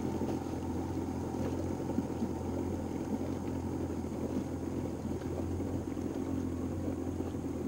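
Outboard motor of a small center-console fishing boat idling steadily, a constant low hum.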